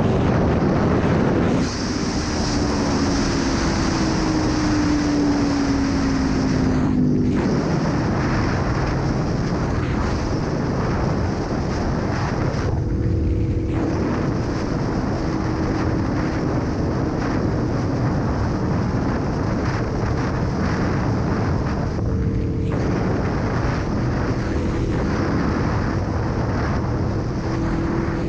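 Aprilia Tuono V4 1100 motorcycle being ridden, its V4 engine running under heavy wind noise on the microphone. The engine note falls steadily in pitch over the first several seconds, then holds fairly steady, with a few brief breaks in the upper sound.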